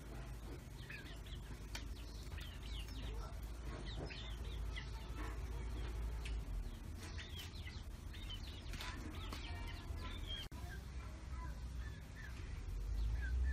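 Birds chirping and calling, many short high calls scattered throughout, over a steady low rumble.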